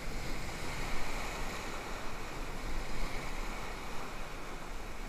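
Whitewater rapids rushing around an inflatable raft, a steady roar of churning river water, easing slightly over the last couple of seconds.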